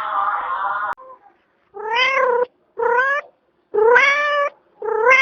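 Domestic cat meowing four times in succession, each meow about half a second long and rising in pitch. Before the meows, a held sound with many harmonics is cut off abruptly about a second in.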